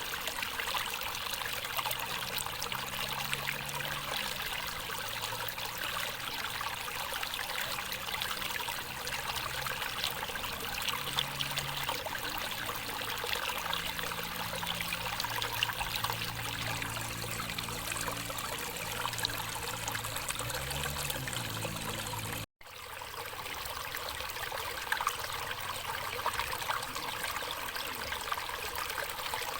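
Stream water running steadily over rocks, a constant rushing hiss, cut off for an instant about two-thirds of the way through.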